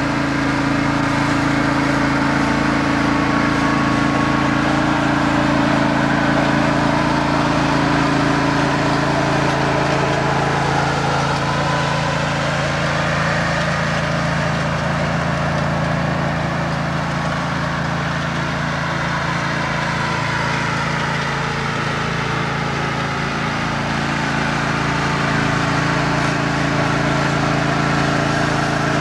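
Small lawn mower engines running together, a riding mower and the four walk-behind mowers it tows, making a steady drone made of several overlapping engine tones.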